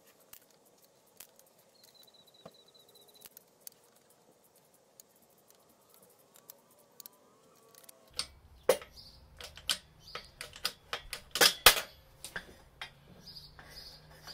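Hydraulic bottle jack being pumped in a steel press frame to press a clutch release bearing off its carrier. Sparse faint metal clicks, then from about eight seconds in a run of sharper clicks and knocks, loudest a little past halfway.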